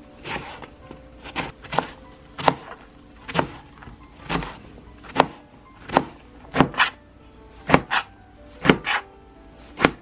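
Chef's knife chopping eggplant into cubes on a cutting board: a string of single cuts, each a short crunch through the flesh ending in a knock of the blade on the board, spaced irregularly about half a second to a second apart.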